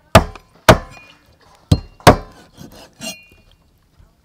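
Knife chopping down onto a thick wooden chopping block as it cuts the claw tips off raw chicken feet: four sharp knocks in about two seconds and a softer fifth about three seconds in.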